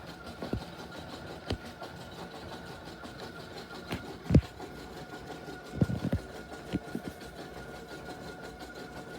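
A machine running with a steady hum, over which come several irregular low thumps and knocks, the loudest about four seconds in and a cluster around six seconds.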